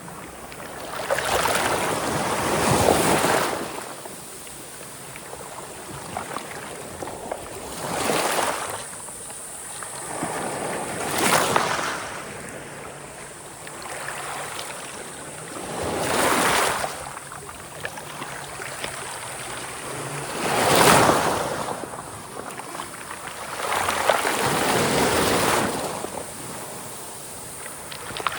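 Sea waves breaking on the shore, each surge swelling and fading about every four to five seconds.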